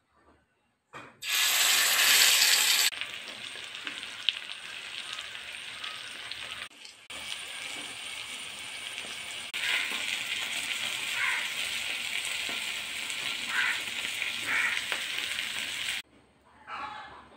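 Spice-coated fish shallow-frying in hot oil in a pan, a dense sizzling with spitting. It starts suddenly about a second in at its loudest, then sizzles steadily, with a brief break partway through, and cuts off abruptly near the end.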